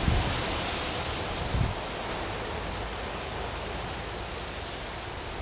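Steady wash of sea surf breaking on a rocky shore, with wind buffeting the microphone in two short low rumbles: one at the start and one about a second and a half in.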